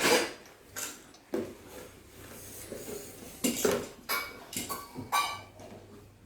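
Several light knocks and clinks of hard objects being handled, a few of them ringing briefly.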